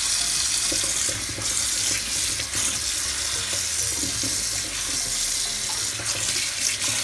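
Kitchen tap running steadily, cold water pouring over freshly boiled lasagna noodles in the sink to rinse them.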